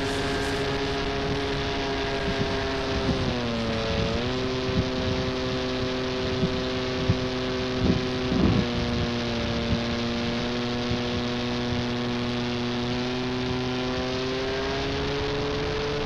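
Brushless outrunner motor and 13x4 propeller of a foam RC aerobatic plane, running with a steady hum. The pitch drops about three seconds in as the throttle is eased, holds lower, and climbs again near the end. A few short knocks sound in the middle.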